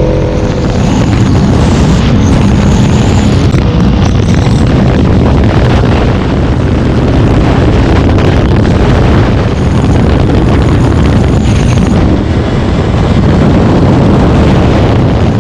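Motorcycle riding at speed: loud, steady wind rush buffeting the microphone, with the engine's drone underneath.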